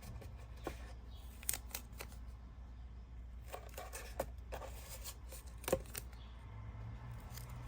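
Masking tape being handled, cut and laid down on a craft piece: scattered small clicks and short rustles over a steady low hum.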